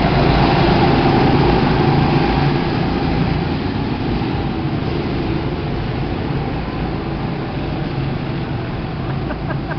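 Go-kart engines running as karts drive round the track, loudest in the first few seconds as a kart passes close, then a steady, slightly quieter drone.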